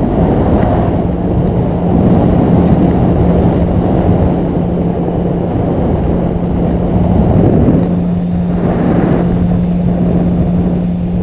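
Paramotor trike's engine and caged propeller running at a steady pitch in flight, with heavy wind buffeting on the microphone.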